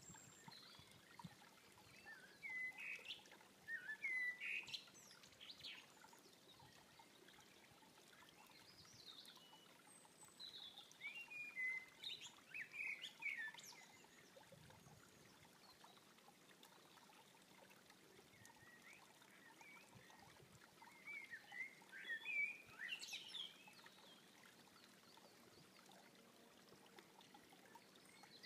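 Eurasian blackbird singing: three warbling phrases of a few seconds each, with pauses between them, over a faint steady hiss.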